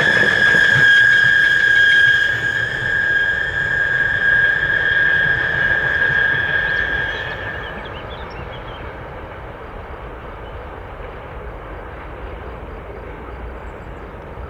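Train wheels squealing against the rails: one steady high-pitched screech that holds for about eight seconds and then fades, leaving a lower rumble.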